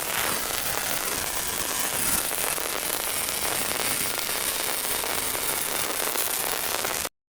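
Electric arc welding: a steady, dense crackle that cuts off suddenly near the end when the arc is broken.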